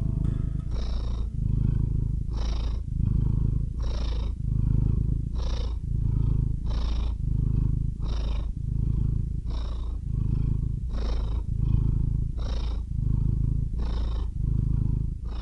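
A cat purring close up: a continuous low rumble that swells and eases with each breath, about one breath cycle every one and a half seconds.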